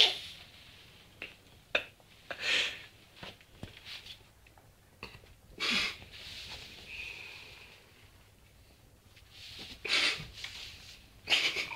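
Dog snoring in its sleep: a wheezy, snorting breath every few seconds.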